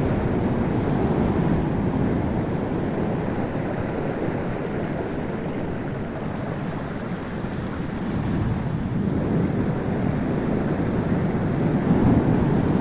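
Heavy storm surf from a cyclone breaking on the shore, a continuous rushing roar with wind buffeting the microphone. It swells as waves crash near the start and again about twelve seconds in, easing slightly in between.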